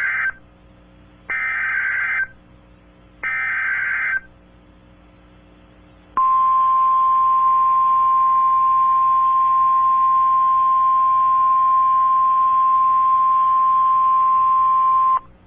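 Emergency Alert System header on NOAA Weather Radio: the tail of one and then two more one-second screeching SAME data bursts, about a second apart. Then the steady 1050 Hz warning alarm tone sounds for about nine seconds and cuts off, the signal that a warning, here a tornado warning, is about to be read.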